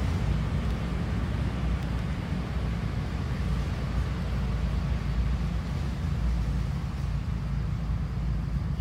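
A steady low rumble with a faint hiss above it, unchanging throughout.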